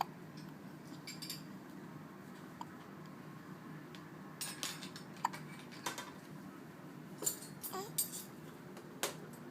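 Baby hiccupping: a run of short, sharp hiccups, sparse at first and coming every half second to a second in the second half.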